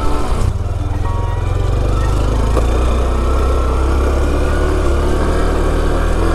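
Honda CT125 Trail 125's single-cylinder engine running steadily as the bike is ridden along.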